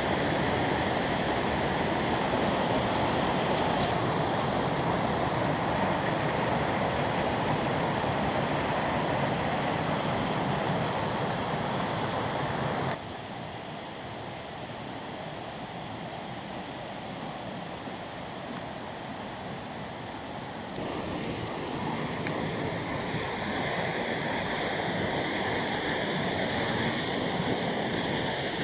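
Stream water rushing over rocks in a small cascade, a steady rush. It drops suddenly to a quieter rush about halfway through and grows louder again about three-quarters of the way in.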